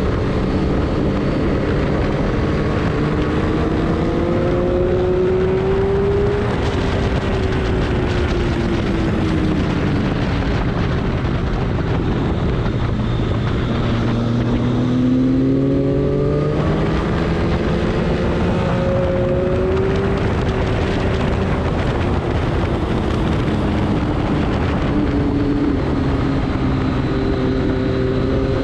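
A vehicle's engine running hard under load, its pitch climbing and falling over and over as it speeds up and slows down, with a steady noise bed underneath.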